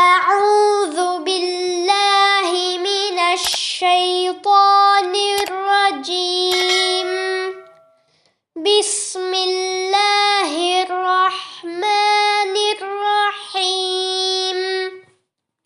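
A child's high voice chanting Quran recitation in a melodic tajweed style: two long, drawn-out phrases with held, gliding notes and a short breath pause at about eight seconds.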